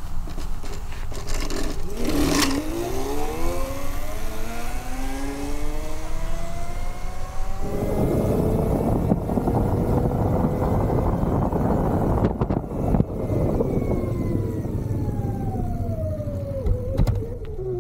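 Electric bike's brushless DC motor, rewound from a drill press's single-phase induction motor and driving the rear wheel through a belt, whining as it runs: the whine rises in pitch as the bike speeds up, a rushing noise builds from about eight seconds in, and the whine falls in pitch as the bike slows near the end.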